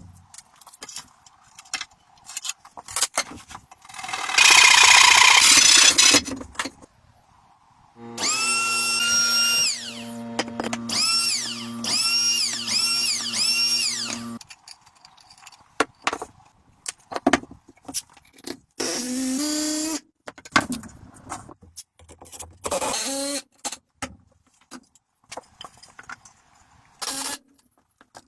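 Power tool running in short bursts on wood, starting and stopping several times, with knocks and clicks of handling in between.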